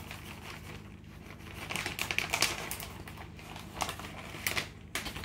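Crinkling and clicking of plastic packaging as shredded cheese is grabbed and sprinkled over a casserole. It is densest about two seconds in, with a few sharp clicks near the end.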